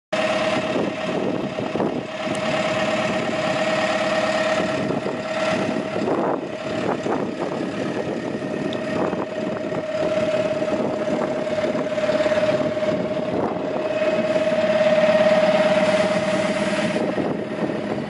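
DAF LF55 truck's diesel engine idling steadily, with a steady hum held over the engine noise until just before the end.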